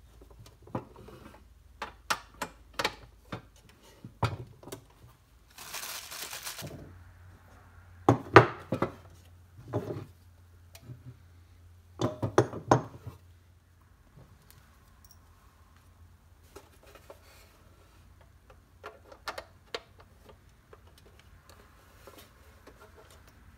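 Clinks and knocks of pressed-steel toy truck parts and small hand tools being handled and fitted together on a wooden bench. The loudest knocks come about eight and twelve seconds in, with a hiss lasting about a second just before six seconds in.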